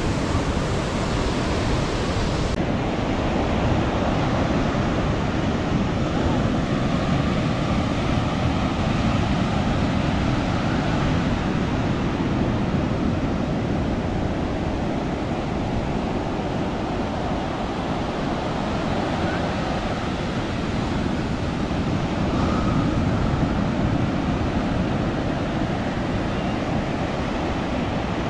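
Ocean surf breaking and washing up the beach in a steady, continuous rush. About two and a half seconds in, the highest hiss drops slightly.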